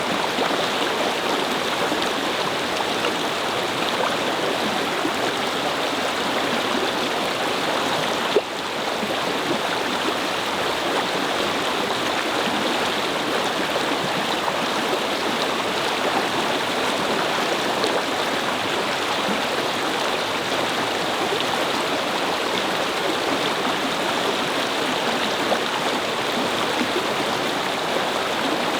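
A shallow brook babbling and gurgling steadily over stones. There is one brief click with a momentary dip about eight seconds in.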